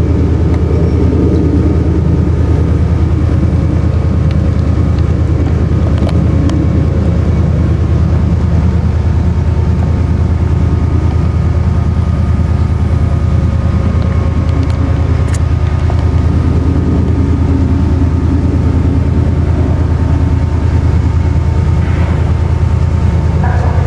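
Diesel train engines running steadily at the platform: a loud, even low rumble with a steady hum above it.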